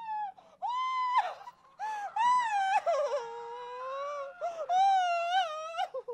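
A woman's high-pitched wailing and moaning: a run of long, drawn-out wails that bend up and down in pitch, as if in pain.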